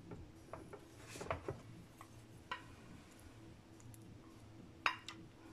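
Metal teaspoon clinking and scraping against a glass bowl while fresh yeast is stirred into warm water to dissolve: a few faint, scattered clinks, the sharpest about five seconds in, over a faint steady hum.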